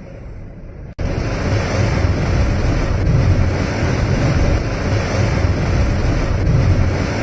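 Strong blizzard wind rushing and buffeting the microphone, with a heavy, gusting low rumble. It jumps much louder after an abrupt cut about a second in.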